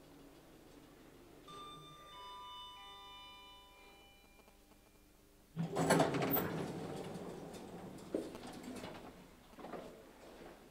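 A three-note chime stepping down in pitch, each note ringing on and overlapping the next. About halfway through, a door slides open with a sudden loud rush that trails off over a few seconds, followed by a single knock.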